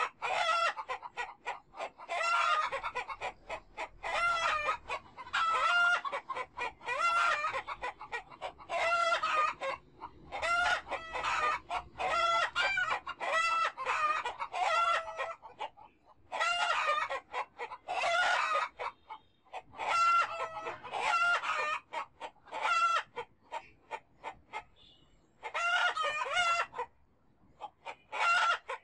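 Chickens calling over and over, many birds giving clucks and drawn-out calls about a second long with only short gaps between them.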